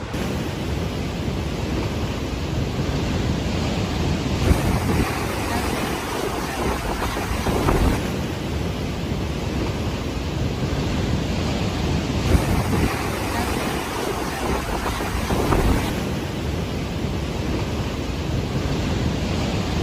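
Heavy storm surf breaking on rocks and against pier pilings, with wind buffeting the microphone: a steady rushing noise with a few louder wave hits.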